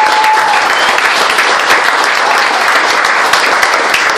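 Audience applauding, a steady stretch of many hands clapping together.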